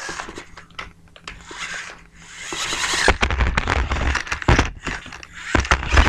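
Remote-control El Toro Loco monster truck driving over things on the floor: its small electric motor running with many sharp knocks and clatters as it bumps over objects, louder and busier from about two and a half seconds in.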